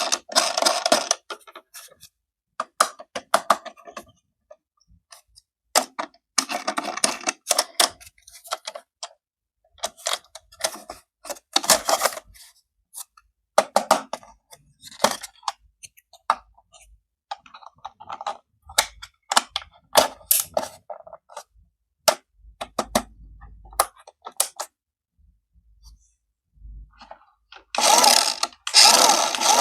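Toy packaging and parts being handled during an unboxing: many sharp clicks and taps, with bursts of rustling and crinkling, the biggest near the end.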